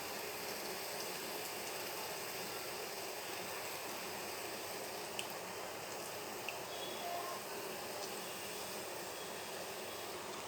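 Jaggery, ginger and honey syrup simmering in a wide pan, a steady bubbling hiss as it cooks down to thicken. Two small clicks come about five and six and a half seconds in.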